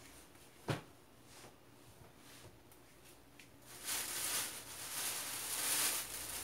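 A single light click under a second in, then from about four seconds in an even rustling of Oxford fabric being handled.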